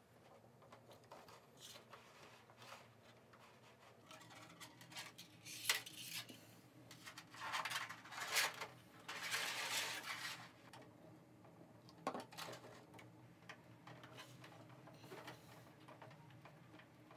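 Hard 3D-printed PLA plastic parts being handled on a wooden workbench: light clicks and knocks, with a few louder stretches of plastic sliding and rubbing about halfway through.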